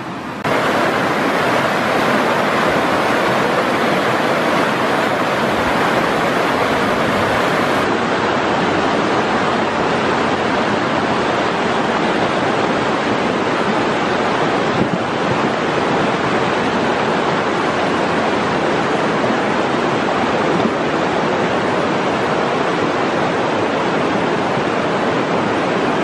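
Steady rush of flowing river water over a shallow, rocky bed, an even, unbroken noise that rises abruptly just after the start and then holds level.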